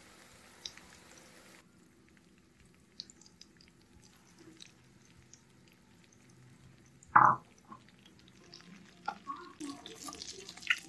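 Prawns frying in hot oil in a pan: sparse crackles and pops from the oil, with one brief loud sound about seven seconds in. Near the end the sizzling and crackling grow louder and denser as a wooden spatula turns the prawns.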